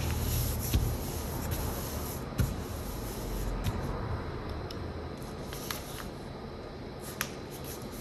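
A sheet of paper rustling and rubbing as it is folded and its creases are pressed flat by hand against a tabletop, with a few short sharp crackles of the paper.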